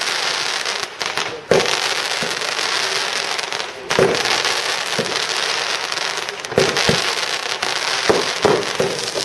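Fireworks display: a dense, steady crackle of bursting shells, with sharp louder bangs now and then, among them about a second and a half in and about four seconds in.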